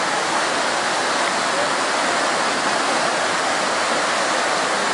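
Rushing floodwater of a swollen river in spate: a loud, steady rush of water that does not let up.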